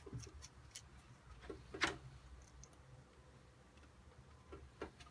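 A few small, sharp clicks and taps of hands handling small parts on a model aeroplane, irregularly spaced, the loudest a little under two seconds in.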